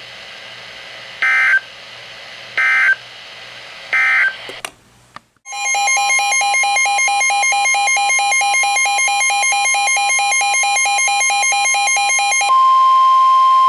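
Emergency Alert System tones: three short chirping data bursts (the SAME end-of-message code closing the flash flood warning), a brief silence, then the loud two-tone EAS attention signal for about seven seconds, which switches near the end to a single steady weather radio alert tone.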